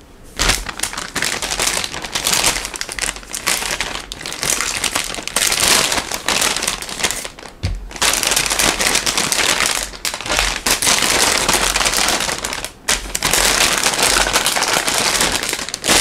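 Plastic bag of mini sweet peppers crinkling as it is handled and opened, with short breaks about eight and thirteen seconds in.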